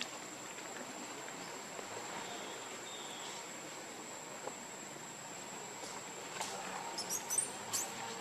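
Outdoor ambience with a steady, high-pitched insect drone, and a few short high chirps and clicks near the end.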